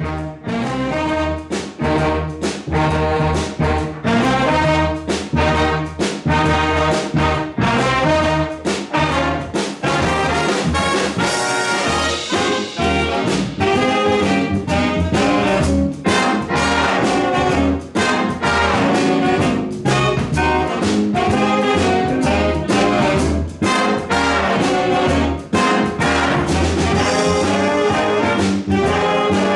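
Jazz big band playing together: saxophones, trombones and trumpets in full ensemble over a bass line and a steady beat.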